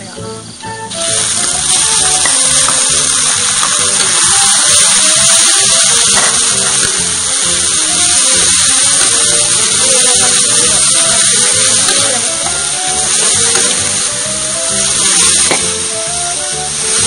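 Minced pork sizzling in hot oil in a wok as it goes in on the fried garlic and is stirred. The loud, steady hiss jumps in about a second in and holds, with background music under it.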